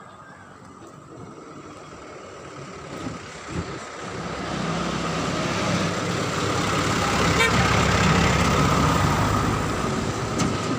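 A motor vehicle passing close by: its engine and rush of noise swell over several seconds, loudest a little past the middle, then begin to fade.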